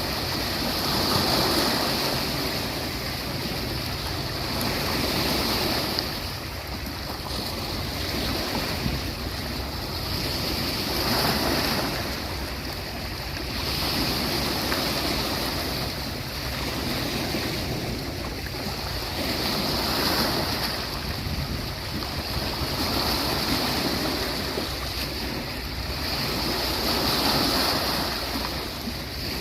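Sea waves washing onto a beach, surging and easing every few seconds over a continuous hiss of surf.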